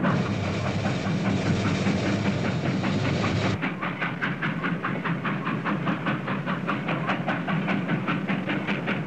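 Steam locomotive running at speed: a steady rushing noise for the first three and a half seconds, then rapid, regular exhaust chuffs at about four a second.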